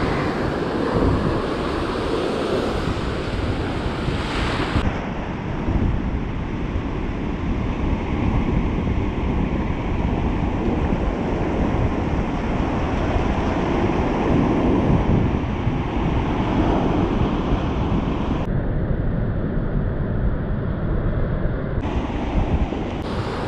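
Ocean surf washing and breaking on a sandy beach, with wind buffeting the microphone. The sound turns abruptly duller a few times.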